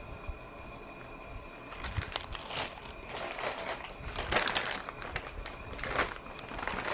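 Paper sandwich wrapper crinkling and rustling as it is handled, in irregular crackles that start about two seconds in.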